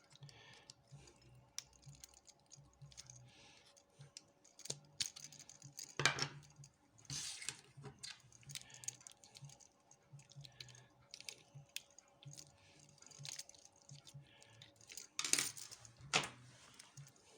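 Small metal clicks, taps and scrapes from a pin-tumbler rim cylinder being dismantled by hand, with a few louder metallic clacks about six, seven, fifteen and sixteen seconds in.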